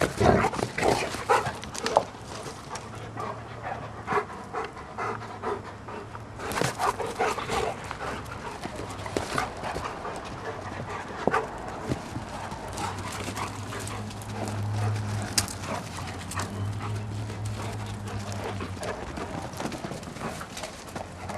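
Two large dogs tussling, panting hard, with scuffling bursts near the start and again about a third of the way in. A steady low hum runs through the second half.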